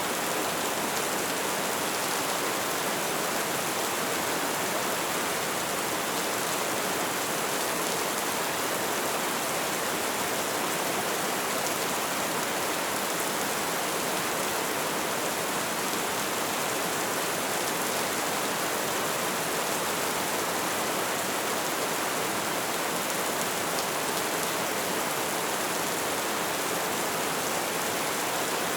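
Rain falling steadily: an even, unbroken hiss that does not change in level, with no single drops or thunder standing out.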